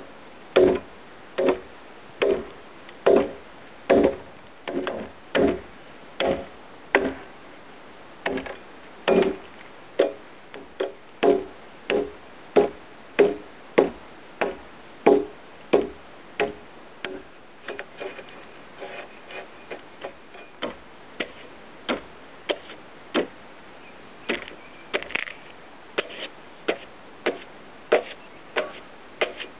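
Replica medieval axe chopping into a timber beam to hew a tenon, a steady run of blows about two a second, each a sharp knock with a short woody ring. The blows turn lighter for a few seconds past the middle, then strengthen again.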